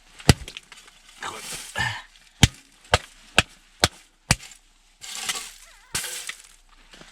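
Sharp knocks of a wooden club striking a freshly landed burbot on the head to stun it: one blow, then a run of five quick blows about half a second apart, and one more near the end, with rustling between.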